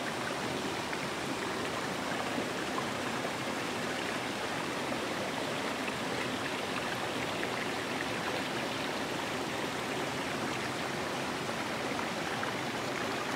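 Steady rushing of a nearby stream, water flowing evenly without a break.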